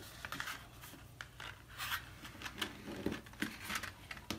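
A bone folder rubbing and scraping along the scored fold lines of heavy 110-pound cardstock to crease them crisp. It comes as a run of short, irregular scraping strokes.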